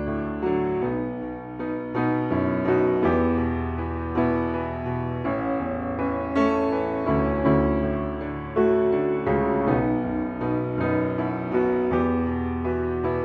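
Background piano music, notes struck one after another over low held bass notes.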